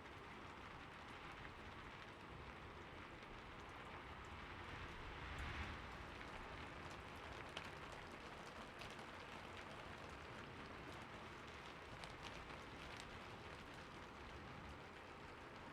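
Steady rain falling on a roof, a soft even patter with scattered individual drops ticking, swelling slightly about five seconds in.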